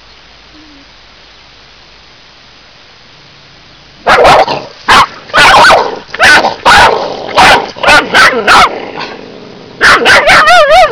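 Cockapoo barking territorially, starting about four seconds in with a fast volley of about ten sharp barks. After a short pause comes a second quick run, the last bark drawn out into a wavering yelp.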